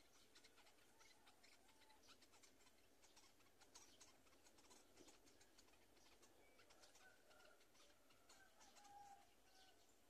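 Very faint sounds of a black-winged kite feeding its chicks in the nest: light crackling and clicking of twigs and prey being torn, with a few soft chick peeps in the second half.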